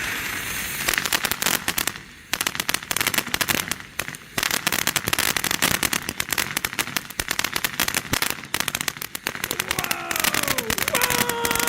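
Consumer ground firework fountain. It gives a steady hiss for about the first second, then dense, rapid crackling pops. From about ten seconds in, several whistles join, some sliding down in pitch.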